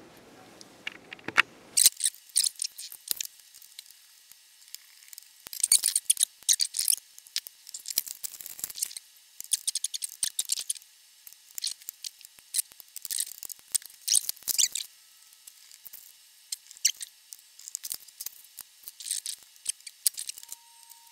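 Scattered light clicks, taps and rustles from hands working on the underside of a turntable: handling wires, touching a meter probe to the metal chassis, and crinkling plastic parts bags. A faint steady tone starts near the end.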